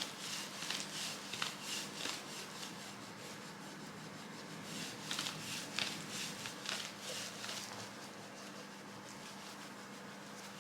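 Soft-tissue massage: hands brushing and rubbing over the patient's skin and clothing in repeated quick strokes, in two runs with a short pause between and lighter strokes near the end, over a steady low hum.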